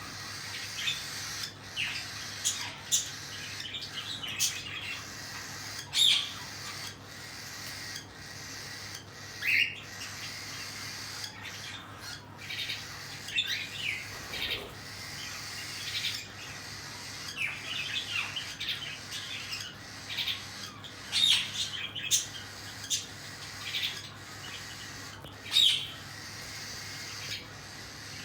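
Cockatiels calling: short chirps and squawks repeated irregularly, some much louder than others.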